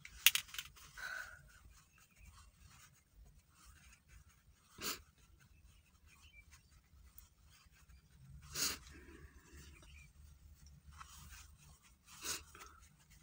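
A woman crying quietly: a few short sniffs several seconds apart, the first and loudest right at the start, with the soft rustle of a paper tissue as she dabs her eyes.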